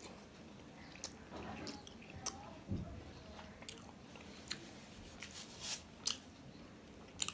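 A man chewing a mouthful of flaky, syrup-soaked sweet paratha close to the microphone: soft mouth sounds broken by scattered short clicks and smacks.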